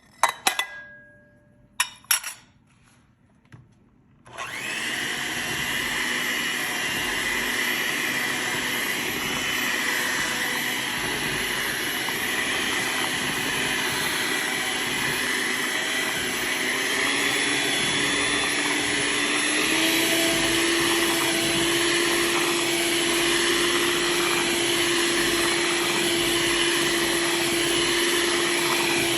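A few clicks and knocks, then about four seconds in an electric kitchen grinder starts up and runs steadily, grinding walnuts. Its hum steps up slightly in pitch a little past halfway.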